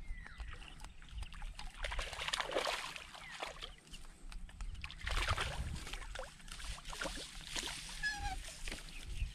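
Shallow seawater sloshing and splashing in irregular surges, with a short high chirp about eight seconds in.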